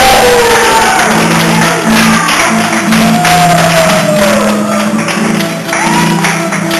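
Argentine folk dance music with a steady percussion beat, held low notes and long sliding melody notes.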